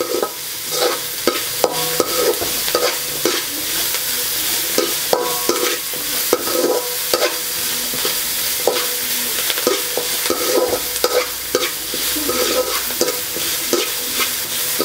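Chopped onions, curry leaves and fennel seeds sizzling in hot oil in an aluminium kadai, with a steady hiss throughout. A metal spatula scrapes and clinks against the pan over and over as they are stirred; some clinks ring briefly.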